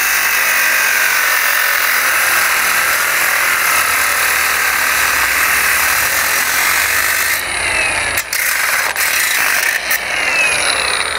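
JPT 21 V cordless angle grinder's cut-off wheel cutting through a rusty steel bolt: a loud, steady high whine with a grinding rasp. Over the last few seconds the cut breaks off in short pauses, and the whine falls in pitch.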